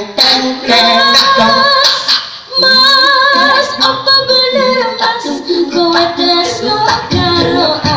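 A cappella Javanese song sung into microphones: a woman sings long, wavering notes while men's voices supply the accompaniment by mouth, including short, sharp imitated kendang drum strokes.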